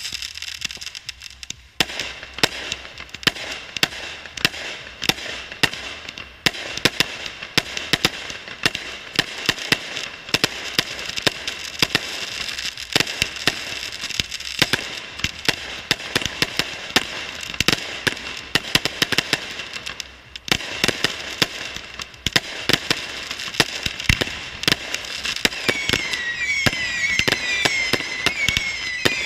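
Fireworks finale barrage: a dense, rapid stream of launches and bursting shells, many bangs a second. The bangs pick up about two seconds in and sit over a steady high whistling. Near the end a cluster of short, wavering whistles joins in.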